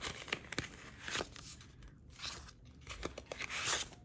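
Rustling and crinkling of a paper dollar bill and frosted plastic cash dividers being handled, in short irregular bursts with small clicks.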